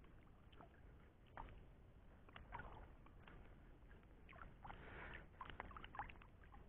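Faint water splashing and lapping with small scattered clicks as a small plastic tub boat is moved across the water, with a slightly fuller splash about five seconds in.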